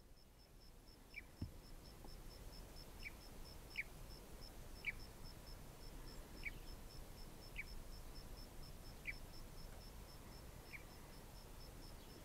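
Faint outdoor field ambience: an insect, cricket-like, chirping steadily about three times a second, with short high falling chirps every second or so and a soft low thump about a second and a half in.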